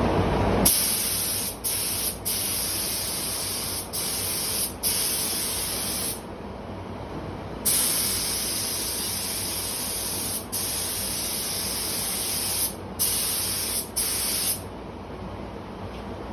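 Compressed-air paint spray gun hissing in repeated trigger-held passes with brief breaks between strokes, pausing for about a second and a half midway and stopping near the end.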